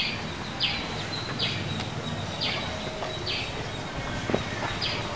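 A bird calling over and over: about six short, high notes, each falling in pitch, roughly one a second. Under it is quiet outdoor ambience with a couple of light knocks.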